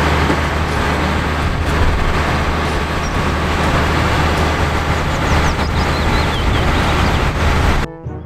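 Concrete mixer truck's diesel engine running steadily, with a strong low hum, and cutting off abruptly near the end.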